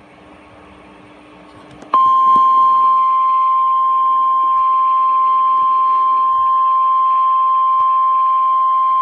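NOAA Weather Radio warning alarm tone: a single steady high beep comes on abruptly about two seconds in and holds unbroken. It is the attention signal that announces a new warning message.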